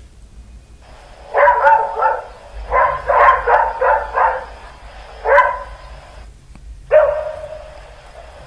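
Dogs barking: a couple of barks, then a quick run of about five, then single barks with pauses between.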